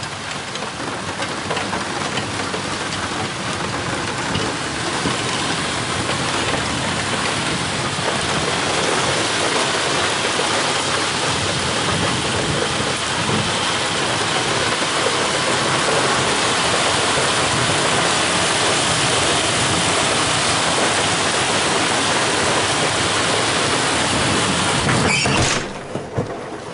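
Heavy downpour pouring steadily, building over the first several seconds into a dense, loud hiss, then dropping off abruptly just before the end.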